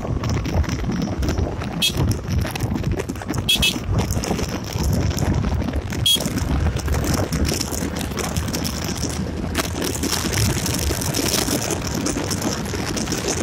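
Wind buffeting the microphone on a moving Yamaha Gladiator motorcycle, over its small single-cylinder engine running at road speed.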